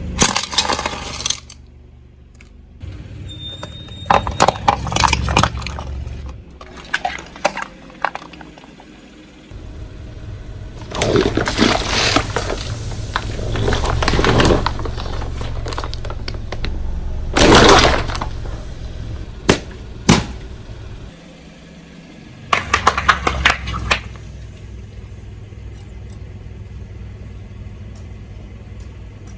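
A car tyre rolling over and crushing brittle objects: repeated bursts of crunching and cracking over the car's engine running low, the loudest a sharp crack about 17 seconds in.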